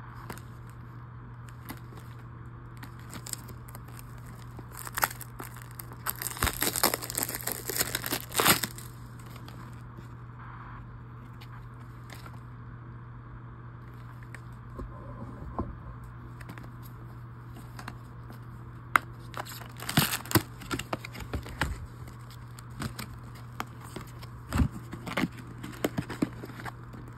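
Plastic shrink wrap being torn and crinkled off a trading card booster box, in irregular bursts of crackling, densest about a quarter of the way in and again in the last third, over a steady low hum.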